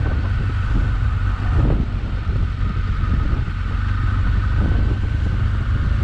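Motorcycle riding: the engine runs steadily under a low rush of wind on the on-board microphone.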